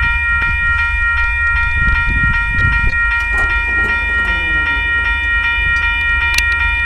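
Railroad grade-crossing warning bell ringing steadily, about three strokes a second, as a train approaches.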